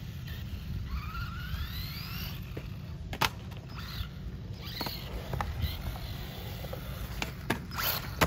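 Electric motor of a 1/16-scale RC truggy whining as it drives, rising in pitch as the truck accelerates about a second in. A few sharp knocks come about three seconds in and near the end.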